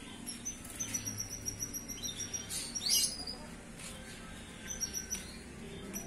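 Four-month-old canary in the early stage of singing, just finding its voice: high twittering notes in short runs, with a sharp downward-sweeping note about three seconds in.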